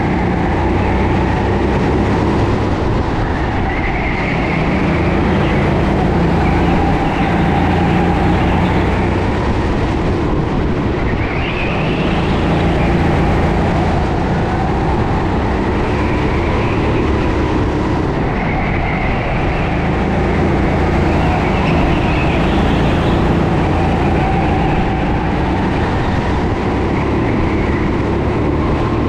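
Sodi SR4 rental kart's 13 hp engine running under hard throttle, heard from on board, its revs rising and falling every few seconds as it accelerates out of corners and lifts again.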